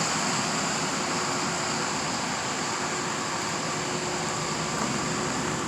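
Case skid steer engine running steadily, a constant mechanical hum with a few steady high-pitched tones above it.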